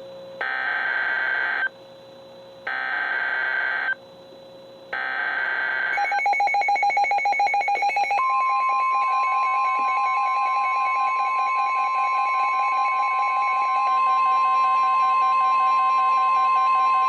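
NOAA Weather Radio Specific Area Message Encoding (SAME) header sent three times as short bursts of digital data screech. After that a roomful of weather radios go off together with beeping and chirping alarms at several pitches. About eight seconds in they are joined by the steady 1050 Hz warning alert tone, which holds to the end, signalling the Winter Storm Warning.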